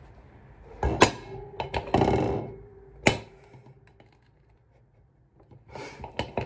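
Fluted metal cake tin being knocked and handled to free a cake stuck inside it: two sharp knocks, about a second in and about three seconds in, with rustling and scraping between them, then more handling noise near the end.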